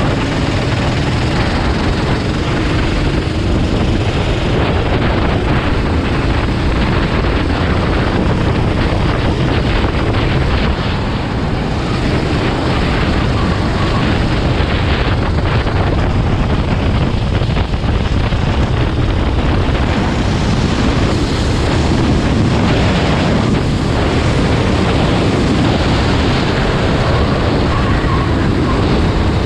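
Loud, steady rumble of racing vehicles running, with wind buffeting the microphone.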